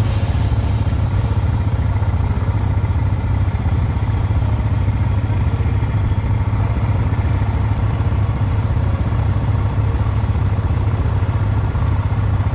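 Quad bike (ATV) engine running steadily, a low even drone with no clear revving up or down.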